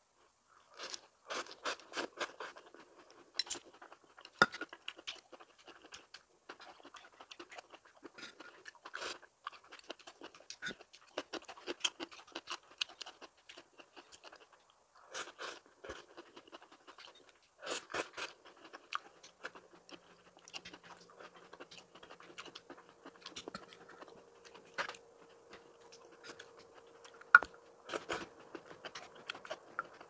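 A person chewing crunchy food close to the microphone, in irregular bouts of crunches and mouth clicks with short pauses between them. A faint steady hum sets in about two-thirds of the way through, and one sharp click stands out near the end.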